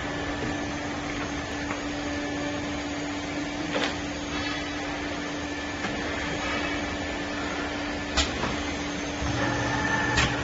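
Automatic bleach filling machine running with a steady mechanical hum, broken by three sharp clicks: about four seconds in, about eight seconds in, and just before the end.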